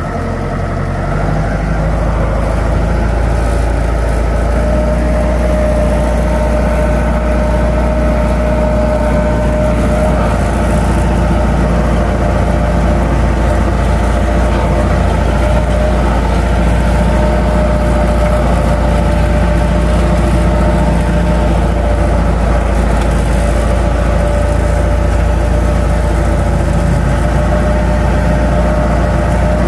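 Jeep engine running steadily as the jeep drives along a rough dirt track, heard from inside the cabin: a constant low rumble with a steady whine over it.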